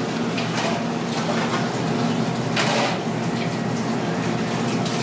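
Busy food-stall background: a steady din with a low hum and faint voices, scattered light clinks, and a short hiss about two and a half seconds in.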